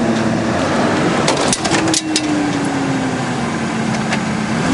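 Truck engine running at low speed, its tone sagging slowly under load as a 2x4 on the bumper pushes over aluminum pool fence poles. A cluster of sharp cracks and snaps comes about a second and a half in, with a few more near the end, as poles give way at the point where they leave the ground.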